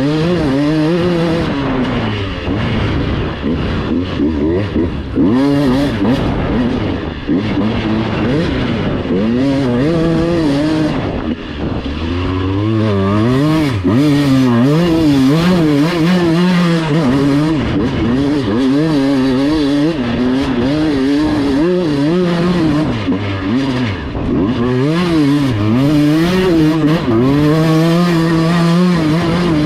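Dirt bike engine being ridden, revving up and down repeatedly as the rider works the throttle.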